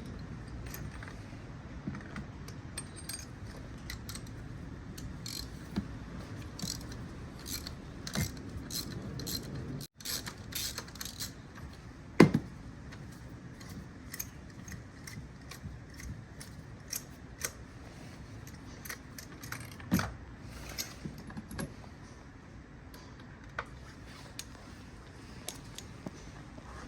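Metal hand tools and spark plugs being handled: a scatter of light metallic clicks and clinks, with two louder knocks about twelve and twenty seconds in.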